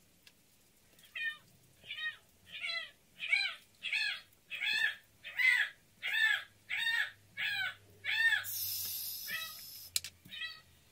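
Domestic cat meowing over and over, a rapid run of about a dozen short meows, each rising then falling in pitch, roughly one and a half a second. A short burst of hiss breaks in about two-thirds of the way through.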